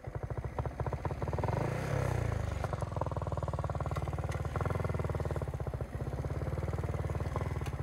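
Motorcycle engine running at a steady, rapid beat of firing pulses.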